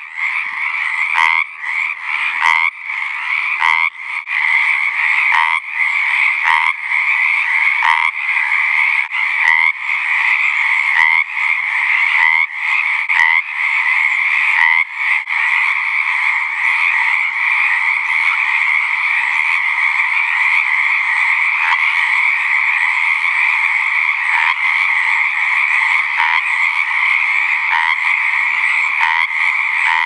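Chorus of Pacific tree frogs: many males giving their mating calls at once, overlapping into a loud, continuous pulsing din.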